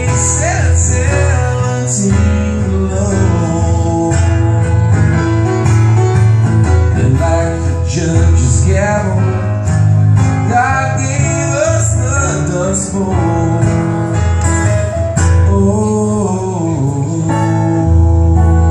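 Acoustic guitar and grand piano playing a song live together, with strummed guitar chords over held piano notes.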